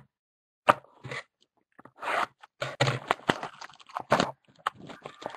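Trading cards and their packaging being handled by hand: a run of irregular crinkling and scraping rustles as cards are slid and shuffled through the fingers.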